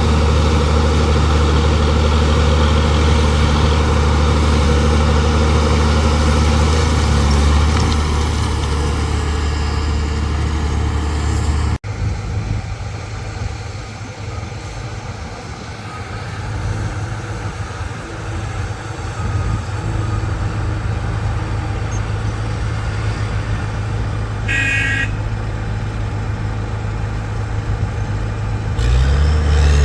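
Heavy diesel construction machine engine running steadily and loud. About 12 s in it cuts abruptly to a quieter engine sound, and it comes back loud near the end. A brief horn toot sounds about 25 s in.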